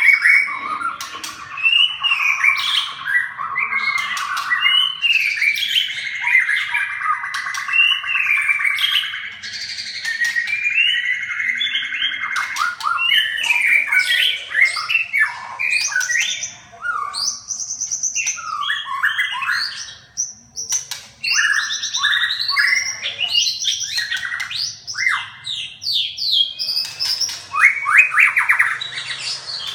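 Birds calling busily, many overlapping chirps, trills and harsh squawks in quick succession, with a sustained trilling stretch early on and sharper, rapid calls later.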